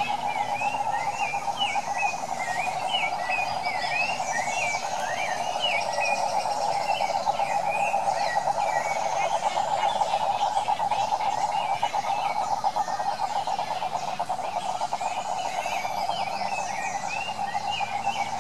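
Cane toad calling: one long, unbroken low trill of fast pulses at a steady pitch, given with its vocal sac puffed out. Birds chirp and whistle higher above it.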